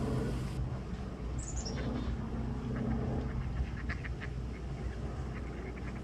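Ducks quacking in short clusters over a low steady hum, with a bird's quick descending chirp about a second and a half in.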